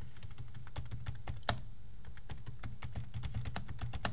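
Typing on a computer keyboard: a quick, uneven run of keystrokes, with one louder key strike about a second and a half in.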